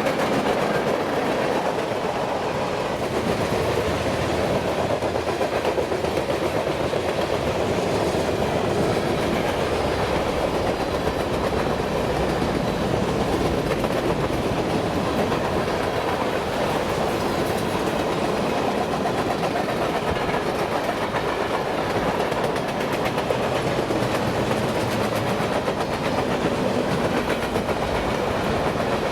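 A freight train's cars rolling past at a steady level, their wheels running on the rails.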